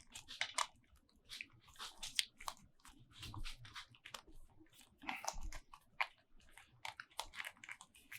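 Irregular small clicks and scrapes of spacers being pushed and worked into a display mounting bracket by hand.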